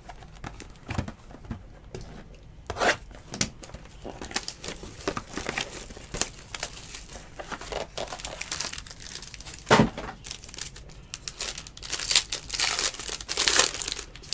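Hands handling trading cards and their packaging: plastic card holders and cardboard box rustling, crinkling and clicking in short bursts, with one louder thump past the middle and a busier patch of rustling near the end.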